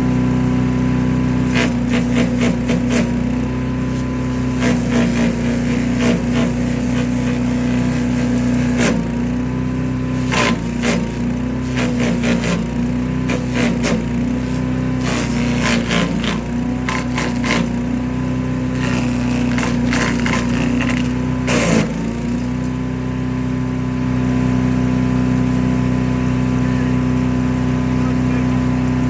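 Predator chipper/shredder running on its gas engine, with rapid sharp cracks and clatter as branches are chipped from about 2 to 22 seconds in. The engine pitch dips briefly under load at several big bites. After that the machine runs on steadily with nothing being fed.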